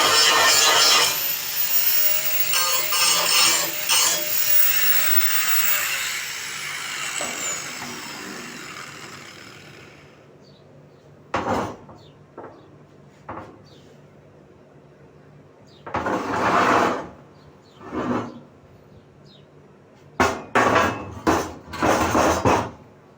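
A power tool cutting, then winding down and fading over several seconds with a falling whine, followed by a series of short, separate knocks and scrapes of hand work.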